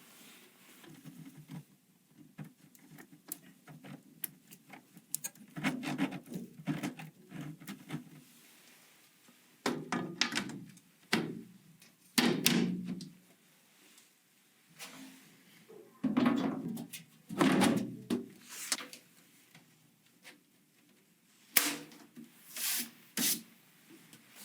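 Hands handling computer parts during assembly: irregular rubbing and scraping with scattered knocks and clicks, the heaviest thumps about halfway through and a few sharp clicks near the end.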